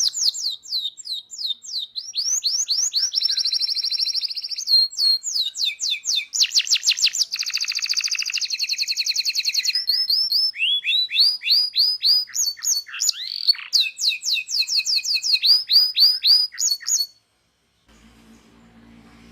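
Canary (local Indonesian kenari) singing a long rolling song: fast trills and repeated rolls that change pattern every second or two. The song cuts off abruptly near the end, followed by a faint low hum.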